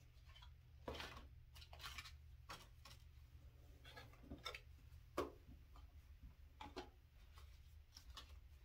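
Faint, scattered clicks, taps and rustles of press-on nail packaging being handled, with a sharper click about five seconds in, over a low steady hum.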